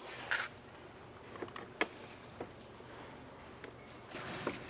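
A few faint, scattered clicks and light taps of a Phillips screwdriver working the screws out along the bottom edge of a car door's trim panel.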